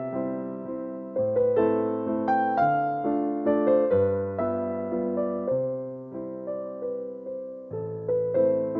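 Background music: an electric piano playing gentle sustained chords with a slow melody, the notes struck and left to fade.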